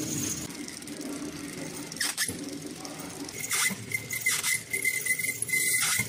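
Horizontal flow-wrap packing machine running as it wraps USB cables in plastic film: a steady mechanical hum, joined about halfway through by a thin high whine. A few short clicks come at irregular intervals.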